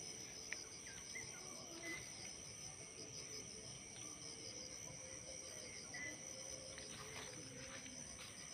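Faint, steady chirring of insects in the garden, a high continuous trill with a fine rapid pulse, with a few short faint chirps over it.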